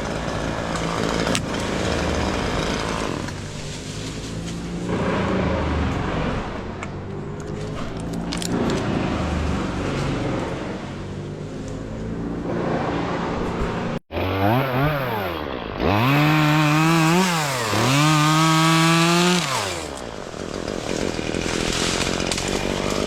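Chainsaw running and cutting limbs, its engine pitch rising and falling with the throttle. About 14 s in the sound cuts off sharply, then a chainsaw revs up and down twice and is held at high revs before dropping back to the rougher cutting sound.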